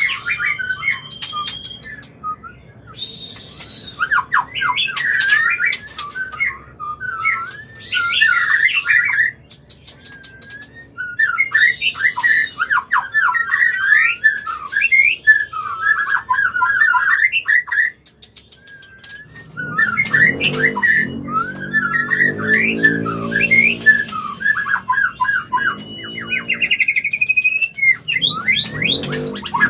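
White-rumped shama (murai batu) in breeding condition singing: fast, varied whistles and trills with harsh rasping bursts, broken by a few short pauses. From about two-thirds of the way through, a lower pulsing sound runs under the song.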